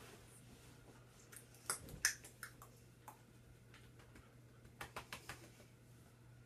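A few short, sharp clicks and taps in two small clusters, the loudest about two seconds in and a quick run of three or four about five seconds in, over a faint steady low hum.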